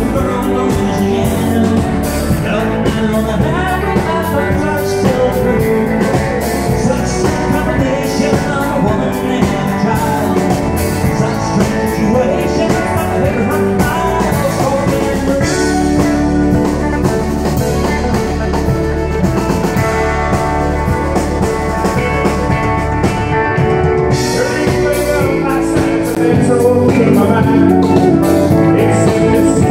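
Live country band playing a song with a male lead singer over electric guitar, pedal steel guitar, drums and keyboard; the band gets louder near the end.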